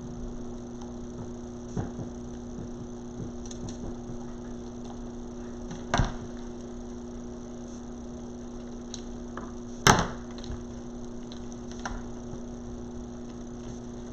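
Handling noises from working craft materials by hand: a few sharp clicks and knocks, the loudest about six and ten seconds in, over a steady electrical hum.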